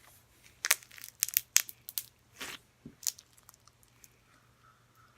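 Stiff slime being squished and stretched by hand, giving off a quick run of sharp crackling pops in the first couple of seconds, then a few scattered pops and faint clicks.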